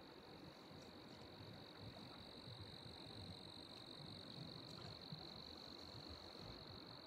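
Faint, steady high-pitched insect trill, over quiet low background noise from water and air.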